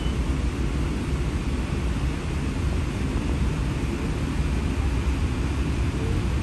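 Steady low rumble and hum inside a CityLYNX streetcar, waiting with its doors closed. Near the end a faint rising whine comes in as the car starts to pull away.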